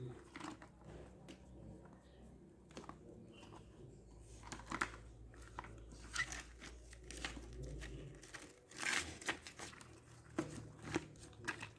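Packaging crinkling and being torn open by hand, with irregular rustles and small handling clicks.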